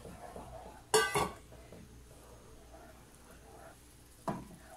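Wooden spoon stirring flour into hot milk and butter in a pot, working it into a stiff dough: two sharp knocks against the pot about a second in and another near the end, with soft scraping between.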